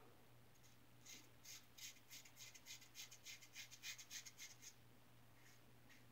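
3D-printed injector razor with a Schick injector blade scraping through lathered stubble in a quick run of short, faint strokes, about five a second, with a few more strokes near the end.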